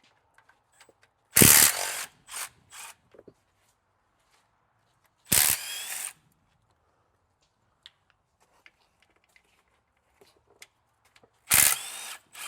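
Impact wrench hammering in three short bursts a few seconds apart, the first the loudest, with a rising whine in each: undoing bolts while a 48RE transmission is being removed.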